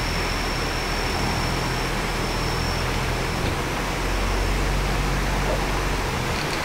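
Steady outdoor background noise: an even rushing hiss over a low rumble, with a faint high steady whine through the first half that fades out.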